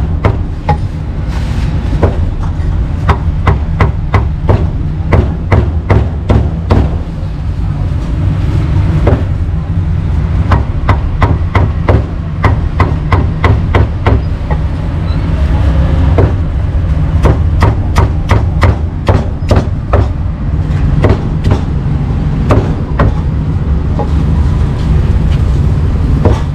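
Cleaver chopping pork on a chopping block: quick strokes in runs, with short pauses between them, over a steady low rumble.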